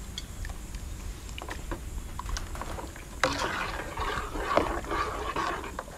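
Metal ladle stirring broth in a large aluminium pot: a few light ticks at first, then from about three seconds in a busier stretch of sloshing and clinks against the pot, over a steady low hum.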